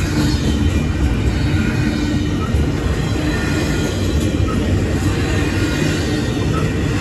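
Double-stack container train's well cars rolling past close by: a loud, steady rumble of steel wheels on the rails.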